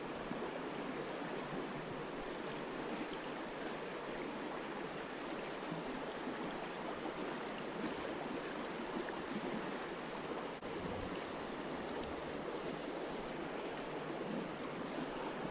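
Fast river current rushing through a riffle, a steady even rush of water.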